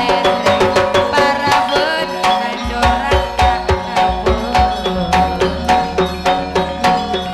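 Live dangdut band playing an instrumental passage: a hand drum beats out quick, steady strokes under held melody notes. A deep bass line comes in about a third of the way through.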